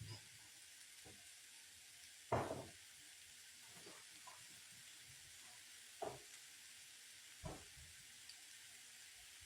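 Vegetables sizzling faintly in a frying pan, with a utensil knocking against the pan as they are stirred: a loud knock about two seconds in and two more near six and seven and a half seconds.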